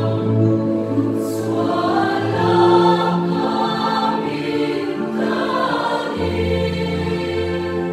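Mixed church choir singing a hymn in parts, holding long chords that change every second or two. The bass line drops to a lower note about six seconds in.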